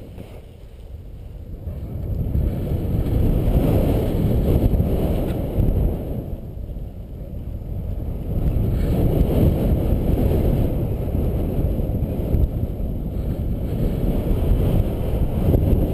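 Airflow of paraglider flight buffeting an open camera microphone: a low, gusty wind noise. It starts quiet, builds within about two seconds and eases briefly around six to eight seconds in.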